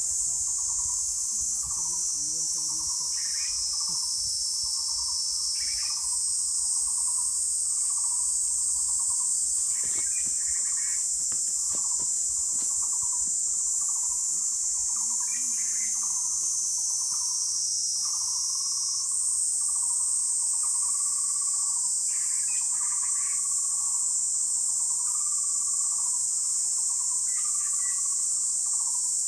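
An insect chorus, a loud, steady, high-pitched drone that steps up in pitch twice. Under it, an animal call is repeated about once a second at a lower pitch, with a few higher chirps now and then.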